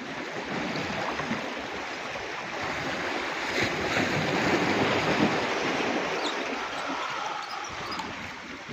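Sea waves washing onto the shore: a rushing noise that builds over the first few seconds and slowly dies away.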